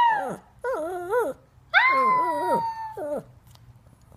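A small shaggy dog howling: a long high howl that falls away at the very start, a short wavering howl about a second in, then another long high howl that wavers and drops off about three seconds in.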